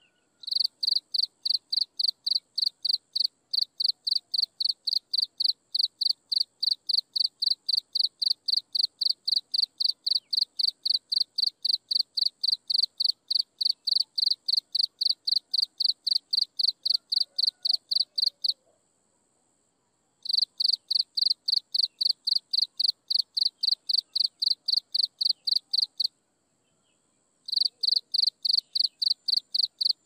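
An insect chirping in an even, rapid rhythm of about three high, loud chirps a second. It stops twice for a second or two and starts again. A faint, steady high-pitched insect trill continues underneath.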